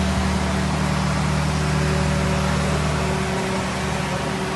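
Steady rain falling on a concrete rooftop and potted plants, an even hiss, over a steady low machine hum that eases slightly about three seconds in.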